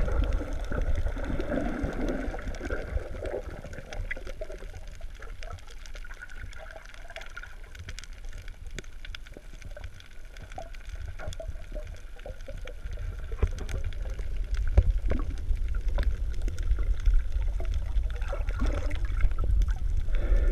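Underwater sound heard through a GoPro's waterproof housing: a muffled low rumble of moving water, with bubbling gurgles in the first few seconds and many small scattered clicks throughout. It grows louder in the second half.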